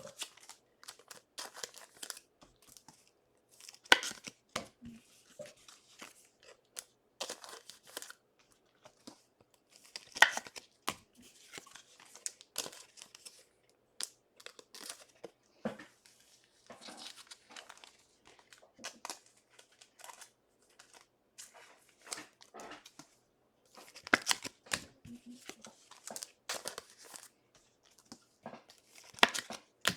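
Trading card pack wrappers being torn open and crinkled by hand, in short irregular crackles.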